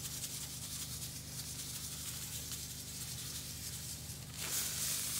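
Table salt pouring from a zip-top plastic bag into a plastic bin: a steady grainy hiss that grows louder near the end as the stream thickens.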